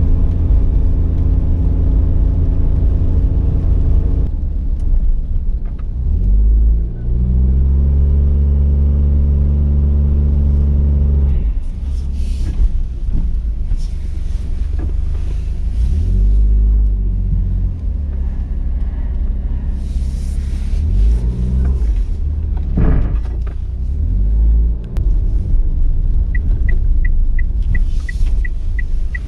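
Background music stops about four seconds in, giving way to a Daihatsu Hijet Cargo's 660 cc turbocharged three-cylinder engine heard from inside the cab on a snowy road. The engine note climbs and holds a few times as the van pulls away and turns, with a single knock a little past the middle. Near the end a turn-signal relay ticks steadily, about three clicks a second.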